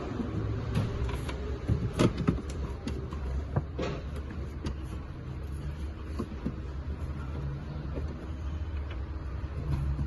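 Steady low workshop hum with a few sharp knocks and clicks, the loudest about two seconds in and again near four seconds.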